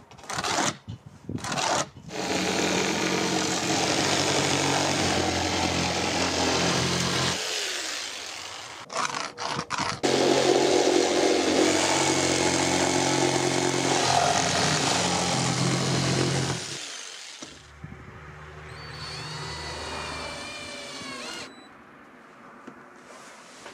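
Electric jigsaw cutting through an OSB sheet, running steadily in two long stretches with a short break and a few clicks between them. Near the end a cordless drill drives a screw through OSB into a wooden batten, its motor whine rising.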